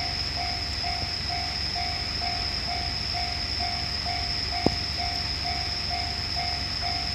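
Japanese railroad crossing alarm ringing its repeated "kan kan" tone, about two strikes a second, over a steady low rumble. A single sharp click sounds about four and a half seconds in.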